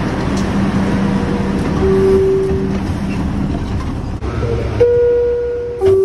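R62A subway car's two-tone door chime as the doors close: a higher note held about a second, then a lower note, near the end. Steady train and platform rumble comes before it.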